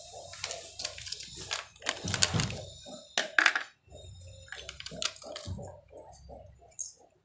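Cartoon soundtrack: a bouncy tune of short repeated notes, about four a second, with a few sharp knocks and clattering sound effects over it about two to three and a half seconds in.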